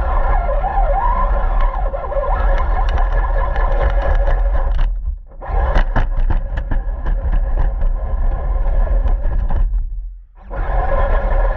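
RC car running with a steady whine whose pitch wavers, over a low rumble and frequent clicks and scrapes from the ground. It nearly cuts out twice, briefly, about five seconds in and again about ten seconds in.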